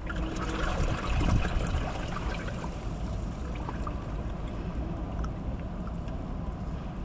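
Seawater trickling and flowing among rocks in a shallow tidal channel: a steady wash with small scattered splashes and drips over a low rumble.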